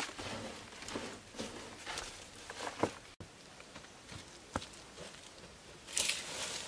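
Hands scraping and scooping loose dry soil into a woven basket, with irregular rustling and soft knocks. After a sudden break come light footsteps on dirt, and near the end a short rush of soil being tipped out of the basket.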